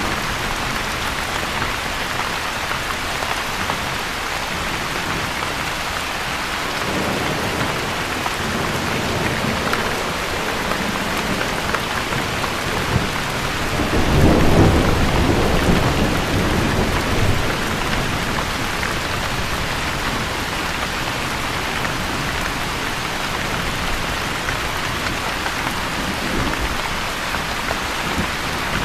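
Steady heavy rain falling, with a long roll of thunder that builds from about a quarter of the way in, is loudest around the middle, and slowly dies away.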